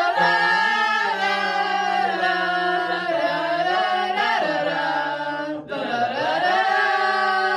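A small group of young voices singing a wordless tune a cappella in long held notes, changing pitch a few times, with a short break a little after the middle.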